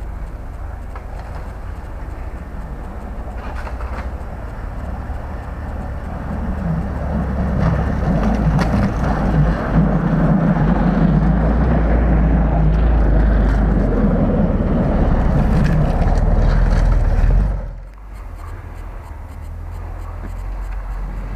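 Mitsubishi Pajero 2 on 33-inch extreme tyres driving up a snow-covered track: engine running and tyres crunching through snow. The sound grows louder as the SUV comes close, is loudest in the middle, then drops off sharply about eighteen seconds in, leaving a quieter low engine rumble.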